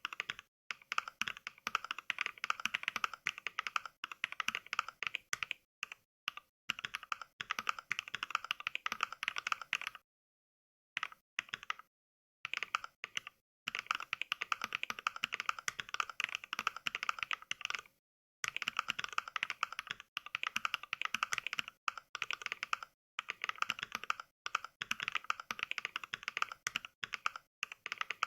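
Simulated mechanical-keyboard typing from the Mechvibes app's NK Cream switch sound pack: a fast, continuous stream of keystroke clacks. About a third of the way in the typing stops dead for roughly two seconds, and there are a few shorter breaks.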